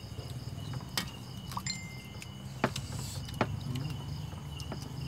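Night insects such as crickets trilling steadily, over a low steady hum, with a few sharp clicks and knocks scattered through.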